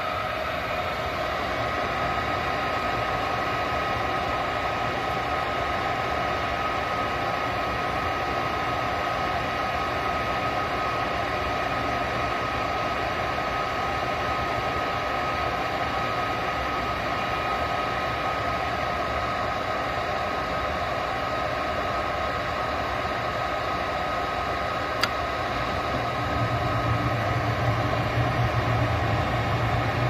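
Lennox 90% gas furnace's draft inducer fan running steadily with a high whine during the ignition sequence. About 25 seconds in comes a single sharp click, and soon after a louder low rumble joins as the burners light on the new gas valve.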